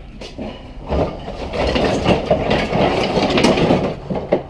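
Wood fire burning with a dense, steady crackle of popping wood, louder from about a second in.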